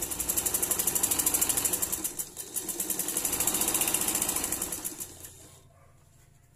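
Ordinary domestic sewing machine running a straight line of stitching along a fabric strip at a fast, even rhythm. It eases off briefly about two seconds in, picks up again, then slows and stops about five seconds in.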